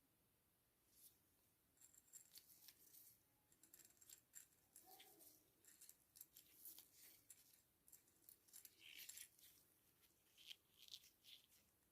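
Near silence with faint, scattered small clicks and light rattling, as of small objects being handled.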